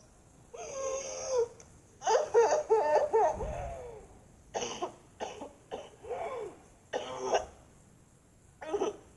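A cartoon character crying: a wavering sob, then a longer wobbling wail, followed by a run of short, catching sobs and gasps.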